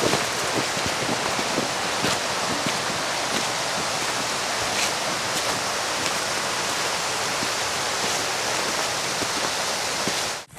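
Steady rushing water of a mountain creek, an even hiss-like rush with no change, cutting off abruptly near the end.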